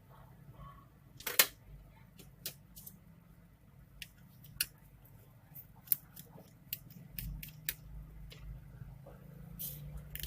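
Scattered small clicks and taps of a laptop being taken apart, as tools and small plastic and metal parts are handled, with one sharper click about a second and a half in.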